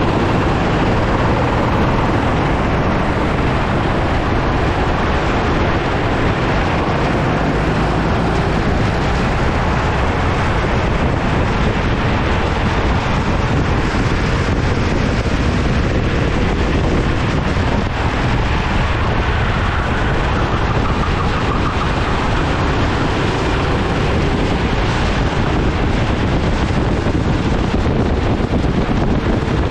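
Go-kart racing at speed, heard from an onboard camera: steady heavy wind buffeting on the microphone over the kart engine's drone.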